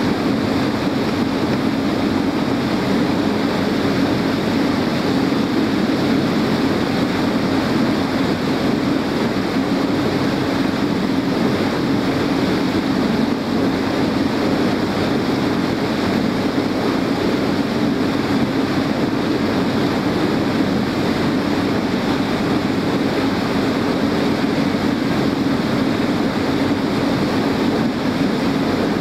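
Small boat's engine running at a steady cruising speed, a constant drone under the rush of water and wind.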